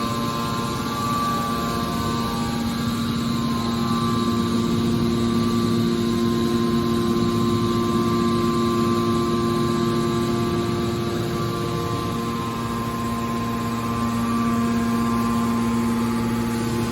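Hydraulic waste metal baler running: a steady machine hum of several held tones over a noisy rumble, as from its electric motor and hydraulic pump.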